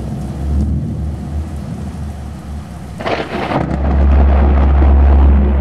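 Thunderstorm with rain and thunder, and a louder thunderclap about three seconds in. A deep steady hum then sets in and the sound grows louder.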